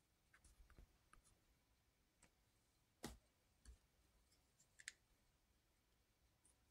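Near silence with a few faint, scattered clicks, the loudest about three seconds in.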